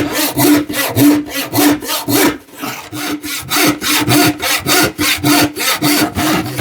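Hand saw cutting through Baltic birch plywood in steady back-and-forth strokes, about two a second, with a brief pause about two and a half seconds in.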